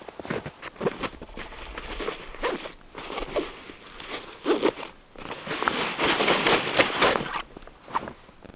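Rucksack being handled: its fabric and straps rustling and scraping in a string of short bursts with a few sharp clicks, and a longer, denser rustle about six seconds in.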